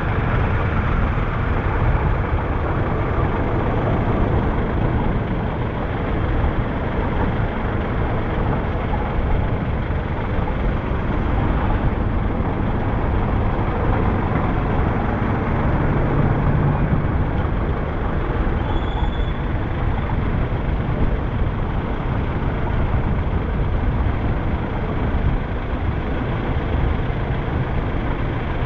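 Steady rumble of road traffic heard while riding along a paved street: engine and road noise with passing motorcycles and buses. A brief high tone sounds about two-thirds of the way through.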